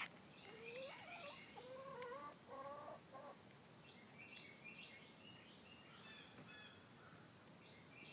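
Faint chicken calling: a string of pitched squawks in the first three seconds. Higher bird chirps come and go through the rest.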